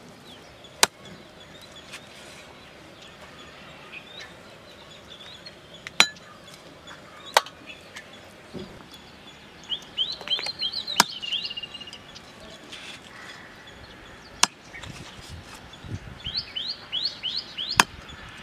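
A heavy knife chopping raw meat on a wooden block: six single sharp chops, several seconds apart. A small bird chirps in quick runs of falling notes twice, about ten seconds in and again near the end.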